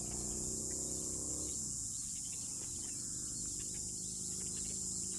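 Steady high-pitched insect chorus, crickets or cicadas trilling without a break, over a faint low steady hum.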